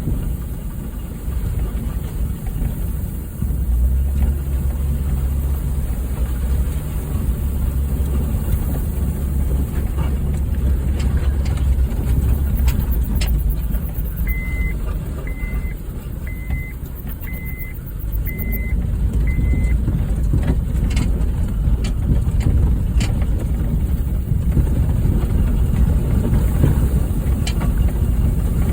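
Honda Fit's four-cylinder engine running at low speed with knocks and rattles from driving over a rough trail. Midway a short high electronic beep sounds six times, about once a second.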